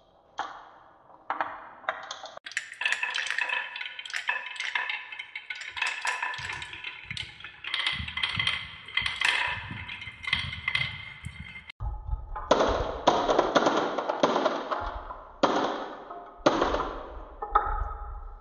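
Many glass marbles roll and clatter along wooden marble-run tracks, with rapid clicks and ringing clinks as they knock against each other and the wood. In the second half, a deeper rolling rumble joins the clatter as they run over wavy wooden tracks.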